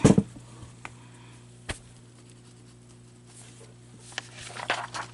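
A steady low electrical hum under a few small handling noises: a sharp click about a second and a half in, and faint rustling and light knocks near the end.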